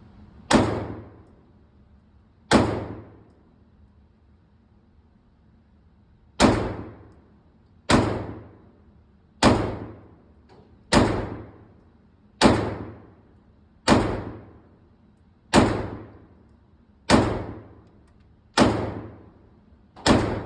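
9mm SIG P365 Fuse pistol firing a slow string of aimed shots for accuracy: twelve sharp shots, each with an echoing tail. Two come at the start, then after a pause of about four seconds a steady shot every second and a half.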